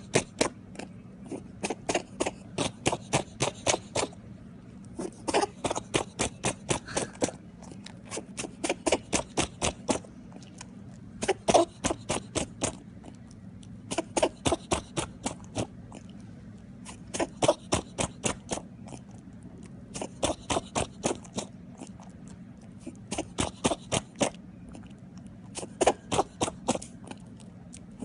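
Pet rabbit sneezing in rapid runs of small, sharp sneezes, about four or five a second. Each run lasts a second or two and comes again every few seconds.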